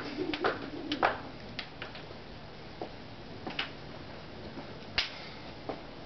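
Skipping rope slapping on brick paving, several sharp slaps in the first second, then the skipping stops. A few scattered taps and steps follow.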